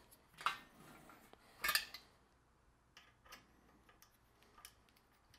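Metallic clinks and ticks of an Allen key turning a 4 mm Allen bolt on an e-bike's rear frame: two louder clinks in the first two seconds, then a few lighter ticks.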